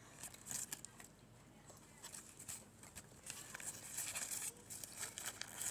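Crispy potato fries crunched and chewed close to the microphone: a run of sharp crackles that grows denser in the second half.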